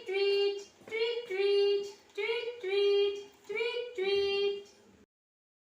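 A high voice singing four repeated two-note phrases, each a short note followed by a longer held one. It stops abruptly about five seconds in.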